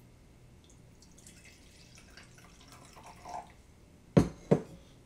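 Vinegar being poured from a glass vessel into a glass beaker, a faint trickle of liquid. About four seconds in come two sharp knocks a third of a second apart, the glass being set down on the countertop.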